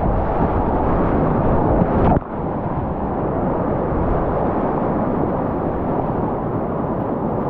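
Whitewater rapids rushing loudly around a kayak, heard from the paddler's seat with wind and water buffeting the microphone. About two seconds in the sound drops abruptly in level and loses its deepest rumble, then carries on steadily.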